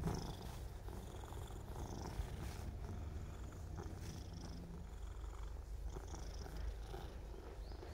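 Old orange tabby stray cat purring steadily while its belly is stroked.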